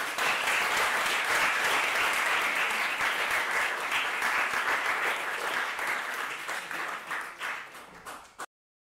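Audience applauding as a lecture ends, a dense patter of many hands clapping that thins out over the last two seconds and then cuts off abruptly.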